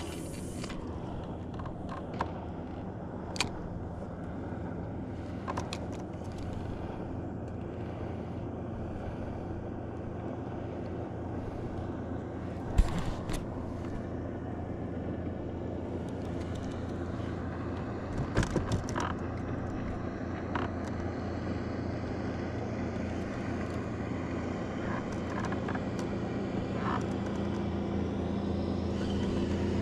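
A boat motor running steadily with a low hum that grows a little louder near the end, with scattered clicks and knocks over it, the loudest two about 13 and 18 seconds in.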